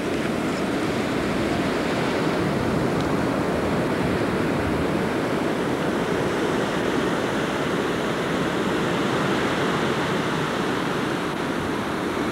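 Wind blowing steadily: a loud, even rushing noise with no breaks.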